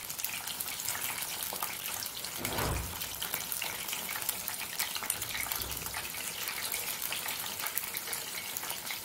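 Batter-coated mushroom pieces deep-frying in hot oil in a kadai over a medium flame: a steady sizzling hiss dense with fine crackles.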